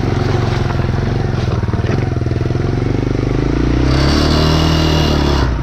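1986 Honda TRX200SX ATV's single-cylinder four-stroke engine under load as the quad climbs out of a water-filled ditch, revving higher about four seconds in and easing off just before the end.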